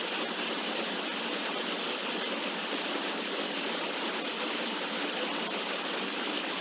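Gearbox running with a steady grinding noise.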